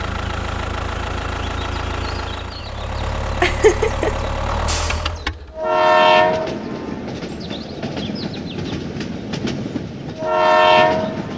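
A train horn sounds twice, each blast about a second long and roughly four seconds apart. Before it, a steady low engine rumble runs for about five seconds and cuts off suddenly.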